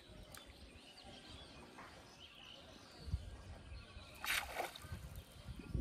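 Outdoor pond-side ambience: faint birds chirping and a low wind rumble on the microphone that picks up about three seconds in, with a short burst of noise a little past four seconds.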